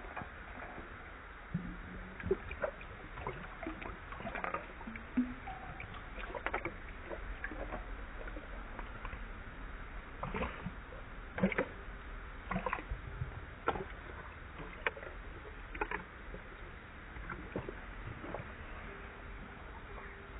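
A dog's snout splashing and lapping in a stainless steel bowl of water, heard as a string of irregular wet clicks and splashes, busiest in the middle, over a steady background hiss.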